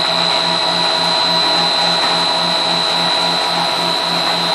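Snack food extruder running steadily, a constant high whine over a broad hiss, with a low throb pulsing several times a second.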